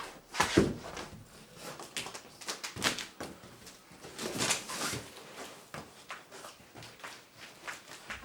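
Cardboard packing inserts being handled and pulled from a shipping box: irregular scraping and rustling with a few light knocks, the strongest about half a second, three seconds and four and a half seconds in.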